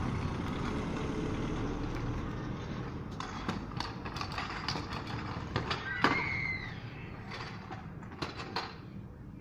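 A car driving past on the street, its tyre rumble fading over the first few seconds, then a series of sharp clacks from a stunt scooter's deck and wheels striking the pavement, the loudest about six seconds in.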